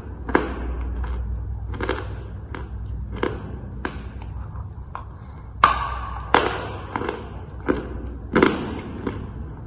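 Dry chalk crunching in a string of sharp, irregular cracks, about a dozen, each a short crisp snap with a brief crumbly trail. The loudest two come just past the middle.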